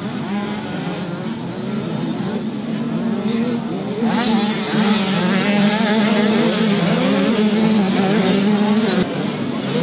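Small two-stroke motocross bikes racing, engines revving up and down as they ride the track; louder from about four seconds in as a bike passes close.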